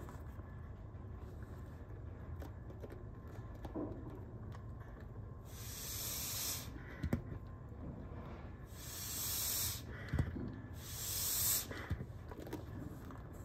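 Bag-valve-mask resuscitator squeezed three times through an adult-size mask held on an infant CPR manikin, each squeeze a hiss of air about a second long, with light plastic clicks from the mask and valve between squeezes.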